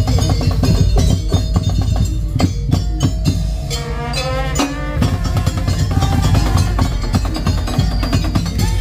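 Madurese tong-tong music: an ensemble of drums and wooden slit drums playing a fast, dense rhythm over a heavy bass, with a wavering melody on top around the middle.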